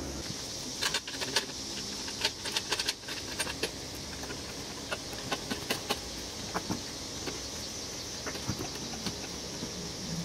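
Hydraulic floor jack and its steel handle being worked: a run of sharp metallic clicks and clinks about a second in, then scattered single clicks.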